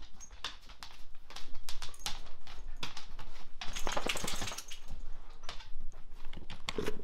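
Dogs' claws clicking and pattering on a hardwood floor as they trot to the door, with a longer scraping rush near the middle as the sliding glass patio door is opened.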